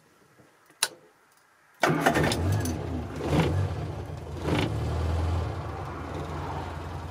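A click, then the 1968 Morris Minor's four-cylinder A-series engine starts up, catching almost at once, is blipped twice, and settles into a steady idle, heard from inside the cabin.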